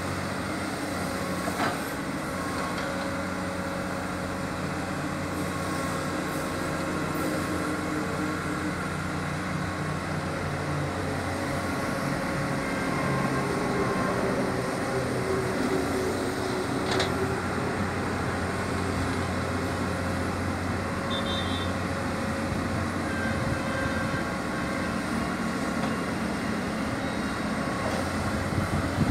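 Komatsu PC210 hydraulic excavator's diesel engine running with a steady drone as the machine digs and scoops earth, with a couple of short knocks.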